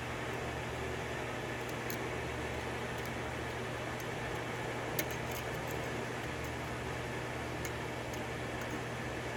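Faint metallic clicks of a lock pick working the pins of a 6-pin DOM pin-tumbler lock, with one sharper click about five seconds in, over a steady fan-like hum.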